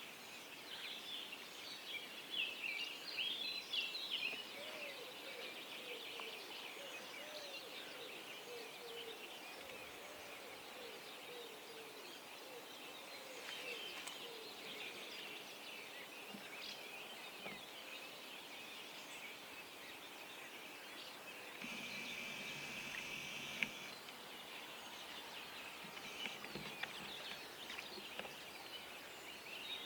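Dawn chorus of many songbirds chirping and trilling. A run of lower, repeated calls comes from about five to thirteen seconds in, and a brief steady hum with a high whine comes about two-thirds of the way through.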